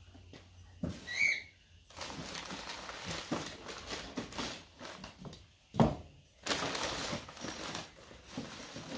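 Brown paper bag rustling and crinkling as it is handled, in two stretches, with one sharp knock between them. A short high chirp sounds about a second in.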